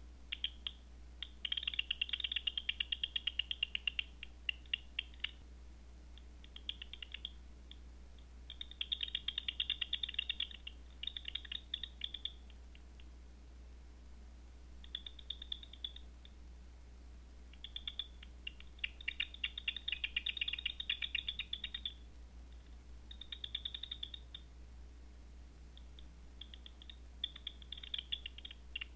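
Bat echolocation calls made audible by a Batseeker 4 bat detector: trains of rapid clicks, each lasting a second or two, coming and going several times as bats pass in range.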